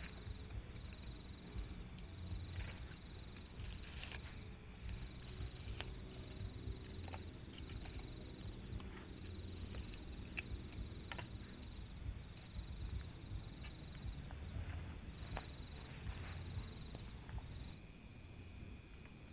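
Night insects, crickets among them, chirping in a rapid, even pulsed rhythm over a steady high-pitched drone, with scattered sharp clicks and a low rumble. Near the end the chirping pulses stop and the sound drops quieter.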